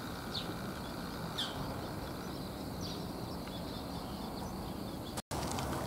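Outdoor rural ambience: a steady high drone of insects with a few short, falling bird chirps. The sound drops out completely for a moment near the end.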